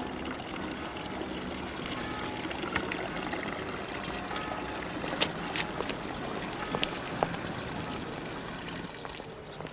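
Water from a stone wall fountain's spout trickling steadily into its basin, with a few light clicks over it.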